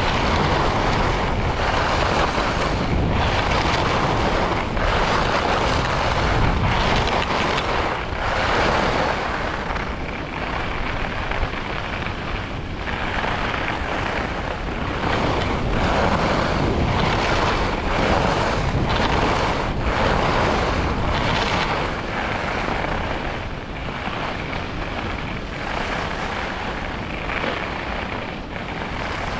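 Wind rushing over the microphone of a skier's camera, with skis hissing and scraping over firm packed-powder corduroy. The rush swells and eases every second or two as the Rossignol Hero FIS SL skis carve from turn to turn.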